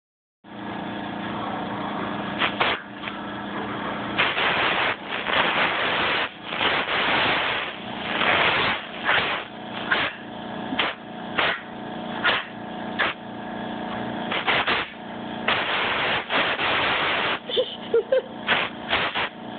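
Air compressor blow gun hissing in repeated short bursts of blown air, about one a second, over the steady hum of the running compressor.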